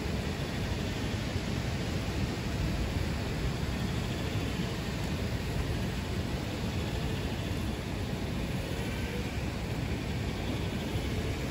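Steady rumbling noise from an RC model Fendt 1050 tractor and the ribbed roller in front of the camera rolling over dry dirt, with no clear motor tone.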